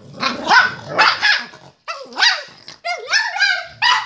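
A dog barking in a rapid run of short, high-pitched barks, about six in four seconds.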